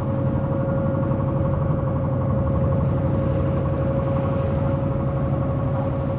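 Wooden fishing boat's engine running steadily under way: a fast, even low throb with a steady whine above it.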